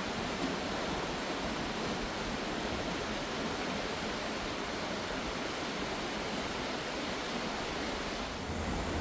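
River water running steadily, an even rushing hiss; a low rumble comes in right at the end.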